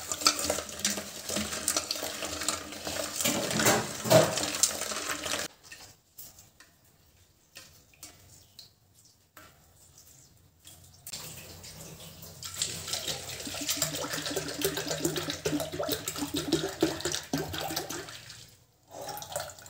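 Hand squeezing and swirling lumps of jaggery in water in a stainless-steel bowl, the water sloshing and splashing as the jaggery dissolves. It goes quiet for about five seconds in the middle, then the sloshing starts again, and near the end milk is poured into the bowl from a plastic bottle.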